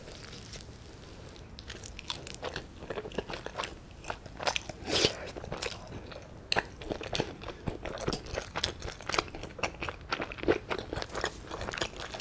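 Close-miked biting and chewing of a cheese-filled white loaf with a baked crust. A dense run of small crunches and crackles, growing busier after about two seconds.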